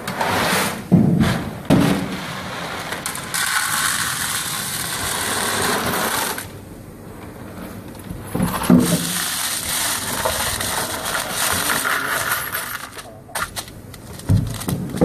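Small hard grey pellets rattling and clinking, in long spells of steady rattle broken by a few sharp knocks.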